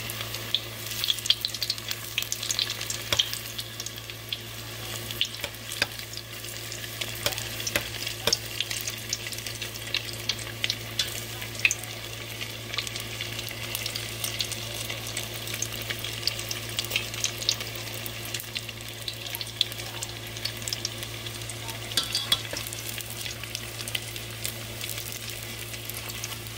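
Battered Korean corn dogs deep-frying in hot oil in a stainless steel pot: a steady sizzle full of small popping crackles.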